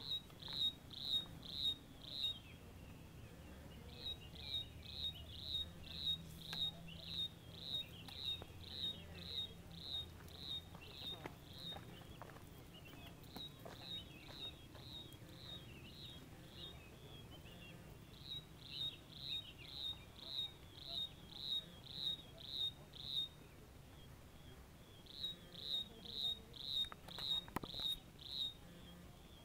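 An insect chirping in long runs of short, high, evenly spaced chirps, about two a second, with brief pauses between runs.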